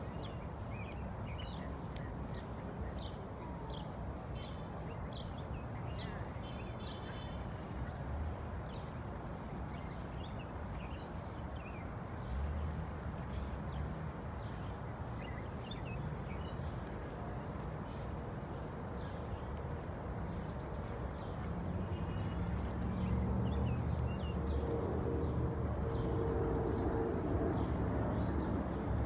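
Park ambience: birds chirping over a steady low rumble of city background noise. In the last several seconds a louder engine-like rumble with a steady drone builds.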